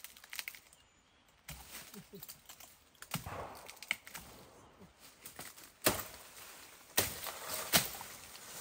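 Dry bamboo stems and leaf litter rustling as a bamboo clump is worked by hand, broken by several sharp cracks and knocks, the loudest in the second half.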